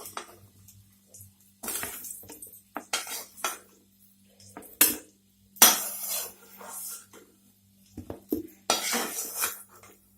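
Metal spoon scraping and clinking against a kadhai as fried potato pieces are lifted out of the oil, in a string of separate strokes with short pauses between them.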